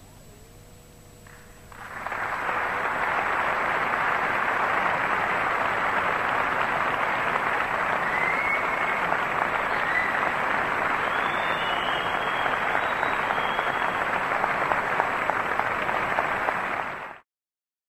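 The last plucked tar notes die away, then a concert audience breaks into steady applause about two seconds in, with a few faint high calls in the middle. The applause cuts off abruptly near the end.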